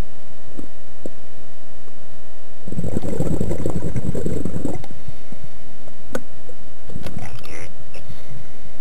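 Scuba diver's exhaled air bubbling out of the regulator: a dense rushing burst of about two seconds, then a sharp click and a second, shorter burst of bubbles near the end.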